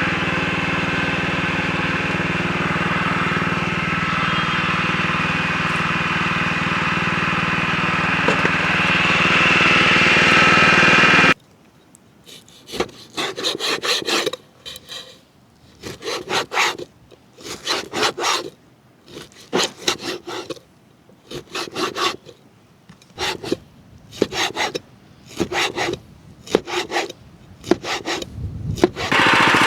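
A small motor runs steadily, then cuts off abruptly about eleven seconds in. After it, rhythmic rasping, scraping strokes follow at roughly one a second.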